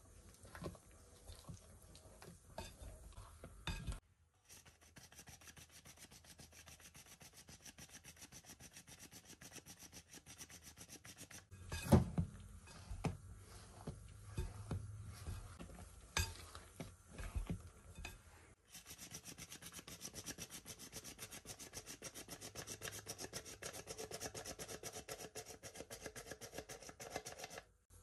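Silicone spatula scraping and folding batter against a glass mixing bowl in quick repeated strokes, with a few sharp knocks on the bowl about halfway through.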